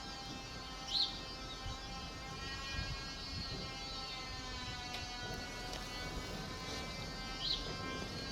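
Siemens E57 electric motor siren sounding a steady tone rich in overtones. A bird chirps briefly twice, about a second in and near the end.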